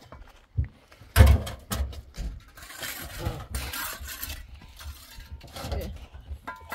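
A run of knocks and clatter from objects being handled, with a heavy thump about a second in and stretches of rustling noise in the middle.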